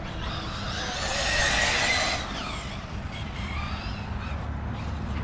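Nitro RC buggy engine revving at a high whine, loudest between about one and two seconds in. Its pitch then slides down as the throttle comes off.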